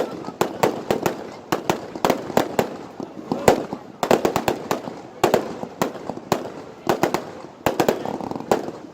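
Fireworks display: a rapid, irregular run of sharp bangs and crackles, several a second.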